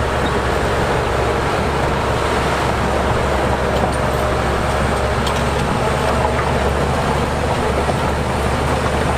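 Heavy diesel earthmoving machinery running steadily, a low, constant engine drone with no let-up.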